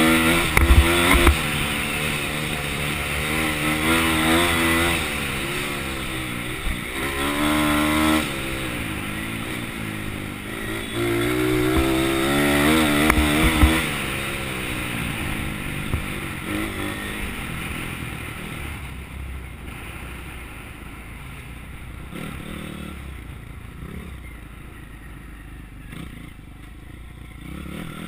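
Pit bike engine heard from the rider's helmet, revving up and falling back in repeated surges as it accelerates and eases off on a dirt trail, with a few sharp knocks near the start and about halfway. In the last third the engine runs lower and quieter.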